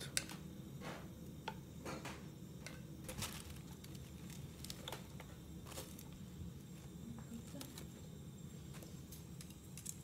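Faint, scattered taps, clicks and soft rustles of chopsticks and hands laying chopped cabbage, radish and tofu into a ceramic hot-pot of broth, over a steady low hum.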